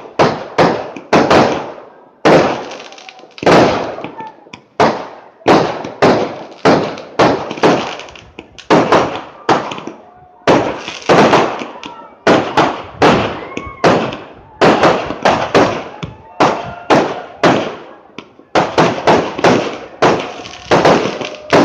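Aerial fireworks shells bursting in a continuous barrage: sharp bangs about one every second, at times in quick runs of several, each dying away in a short rumbling tail.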